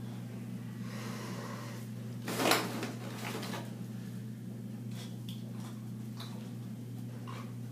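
A steady low electrical hum, with one short, loud knock or bang about two and a half seconds in and a few faint clicks after it.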